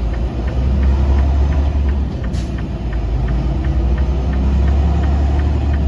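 Diesel semi-truck engine idling in slow traffic, a steady low rumble, with a light regular ticking about three times a second and one sharper click about two and a half seconds in.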